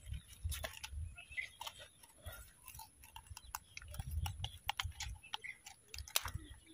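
Faint, irregular clicking and tapping of metal pliers and a lip gripper working a hook free from a snakehead's mouth, over soft low bumps of handling.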